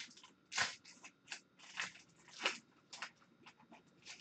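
Foil-lined hockey card pack wrapper crinkling and tearing as it is ripped open by hand, a string of short crackly rustles.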